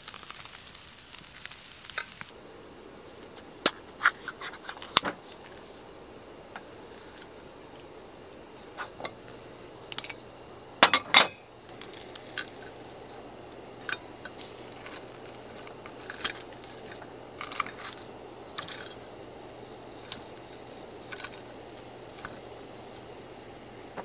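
Scattered light clicks, clinks and knocks of tableware being handled and set down, the loudest a sharp double clack about eleven seconds in. A hiss cuts off about two seconds in.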